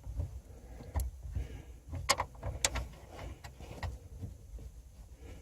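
Light clicks and knocks, about six spread through, as a replacement 6x9 car speaker is handled and fitted against its mount on the rear parcel shelf, over a faint low rumble.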